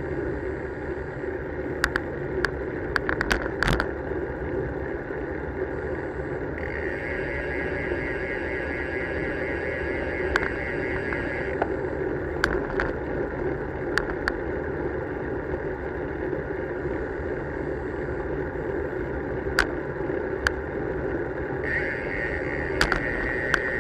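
Bicycle riding along an asphalt road, heard from a bike-mounted camera: steady wind and tyre noise, with sharp clicks and rattles from the bike over bumps. A high buzz comes in for a few seconds mid-way and again near the end.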